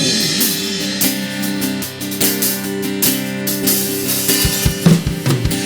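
Live band playing an instrumental passage: strummed acoustic guitar over held chords, with a drum kit keeping the beat. A held sung note with vibrato trails off in the first second.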